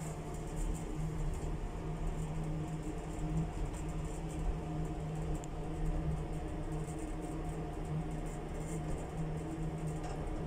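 Steady mechanical hum of a lift car, with a constant low tone and a fainter, higher whine over a low rumble.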